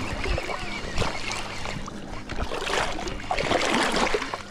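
A hooked northern snakehead thrashing at the water's surface close in, splashing water, with the splashing heaviest about three to four seconds in.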